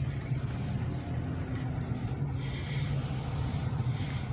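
Car driving slowly, heard from inside the cabin: a steady low engine and road rumble, with a brief rise of hiss a little past the middle.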